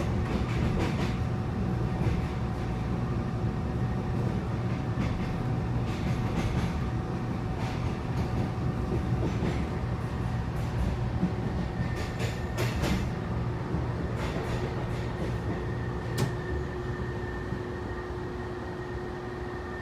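Electric local commuter train running, heard from inside the car: a steady low rumble of wheels on rail with a steady hum, broken by scattered clicks and clacks from the wheels. A higher steady whine joins about twelve seconds in, and the noise eases a little near the end.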